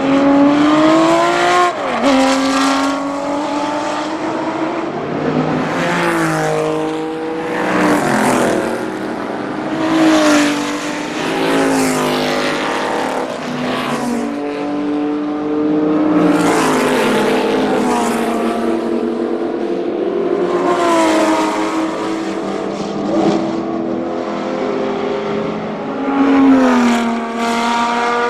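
Porsche 917 K race cars' air-cooled flat-12 engines run hard in a string of pass-bys. The pitch climbs, drops sharply at each upshift, and falls away as each car passes.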